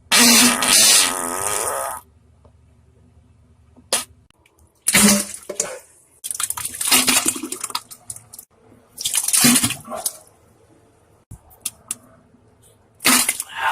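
Diarrhea fart sounds: about five separate noisy bursts with quiet gaps between, the first and longest lasting about two seconds at the start.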